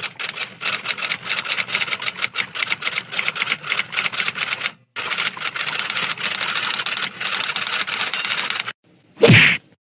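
Typing sound effect: a rapid clatter of key strikes in two runs of about four seconds each, with a short break between them. Near the end comes a brief sound effect that falls quickly in pitch.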